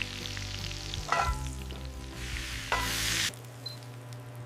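Wild boar steak sizzling in a frying pan as it is basted with butter. The sizzle cuts off suddenly about three seconds in.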